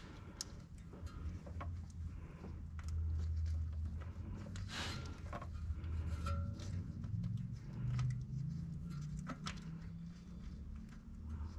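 Scattered light clicks and knocks of hand tools at work on spark plugs, over a steady low hum.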